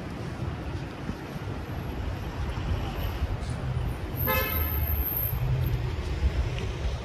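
Road traffic rumbling steadily on a city street, with one short car-horn toot about four seconds in.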